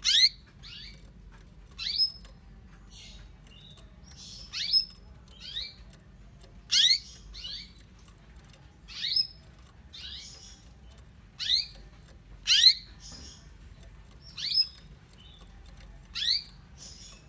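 Female canary calling over and over: short, sharp, rising chirps about every one to two seconds, some followed by a softer note. This is the call of a hen canary calling for a male.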